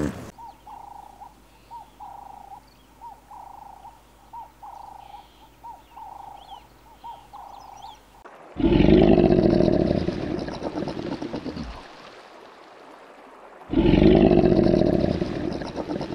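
A series of short, quiet calls repeated about once or twice a second, then two loud, deep animal calls, each lasting about three seconds, a couple of seconds apart.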